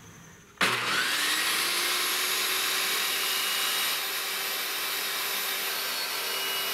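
Table saw switched on about half a second in: the motor winds up quickly, then runs steadily while a strip of wood is fed over the low-set blade to cut a shallow groove.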